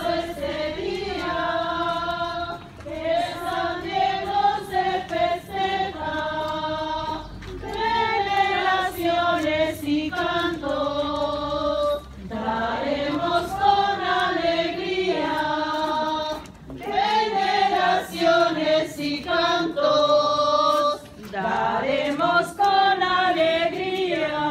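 A crowd of procession walkers, mostly women's voices, singing a religious hymn together in unison without accompaniment, in phrases of about four seconds with short pauses for breath.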